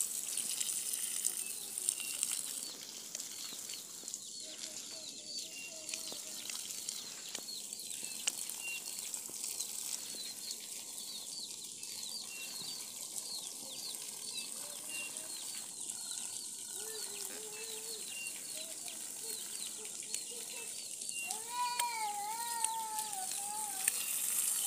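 Garden hose spraying a steady hissing stream of water onto a vegetable bed, pattering on leaves and soil. Many small high chirps repeat throughout, and chickens call, with a long falling call near the end.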